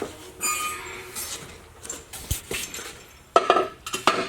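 Metal tools and truck parts clinking and knocking during front suspension work. There is a brief metallic ring about half a second in and a cluster of louder knocks near the end.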